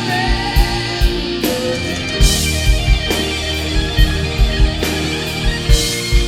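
Live rock band playing an instrumental passage: guitar and bass over a steady kick drum, with cymbal crashes about two seconds in and again near the end.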